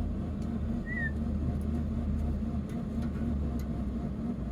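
Steady low hum, with one short high chirp about a second in and a few faint clicks.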